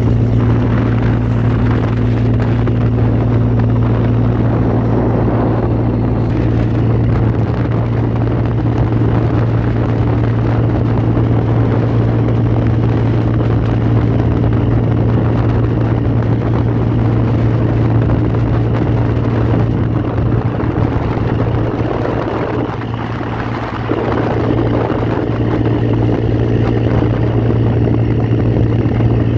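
Boat engine running steadily with a constant low drone.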